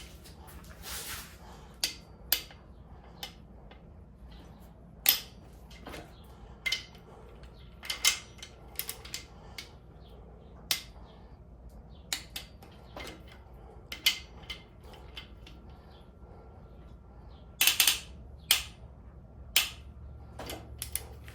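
Click-type torque wrench tightening the main bearing cap girdle bolts of a Honda D16 engine to 36 foot-pounds, with sharp single clicks every second or two and a quick cluster of clicks near the end.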